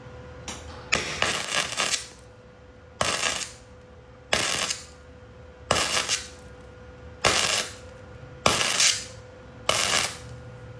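Metalwork in a smithy and welding shop: a string of short, sharp metallic bursts, about eight of them, roughly one every second and a half, over a faint steady hum.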